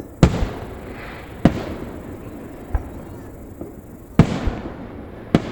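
Aerial fireworks going off: four sharp booms spread over about five seconds, each trailing a rumbling echo, with smaller crackling pops between them.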